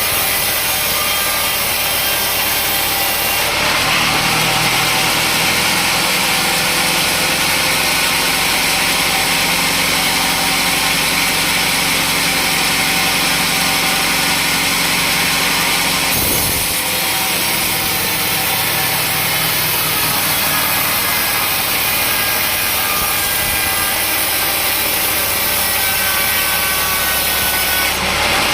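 Sawmill saw cutting through a teak log: a loud, steady sawing noise that changes tone about three and a half seconds in and again a little past halfway.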